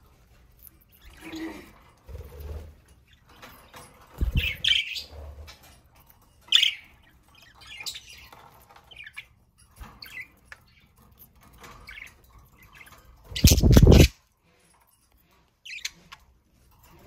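Pet budgies chirping in short, scattered calls. A loud rustling burst comes about 13 seconds in.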